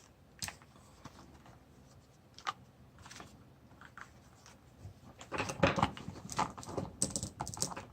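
Hands handling a plastic action figure and its small accessories: a few isolated light clicks, then a busier run of clicking and rustling in the last few seconds.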